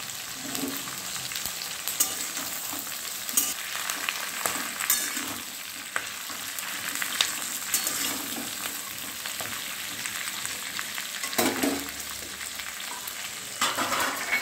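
Chopped onions and green capsicum sizzling in hot oil in a steel kadai. They are stirred with a spatula that clicks and scrapes against the pan every second or two, with a louder clatter of stirring near the end.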